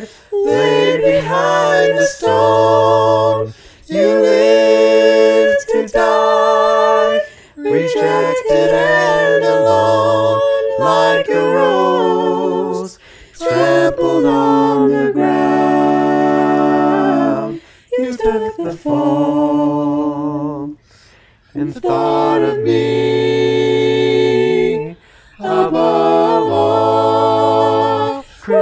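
Several voices singing a hymn a cappella in harmony, with no instruments, in phrases of a few seconds each separated by short breaks for breath.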